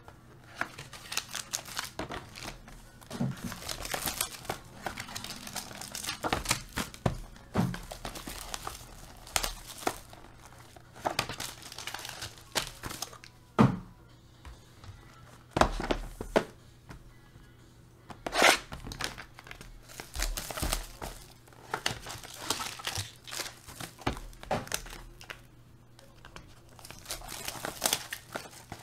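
Plastic shrink-wrap and the foil pack wrapper of 2019 Topps Tier One card boxes being torn open and crinkled by hand: irregular crackling with many short clicks and a few sharper snaps, the loudest about two-thirds of the way through.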